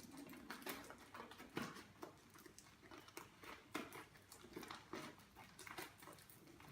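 A round box being opened by hand and the packets inside handled: faint, scattered clicks, taps and rustles of packaging, a few a second.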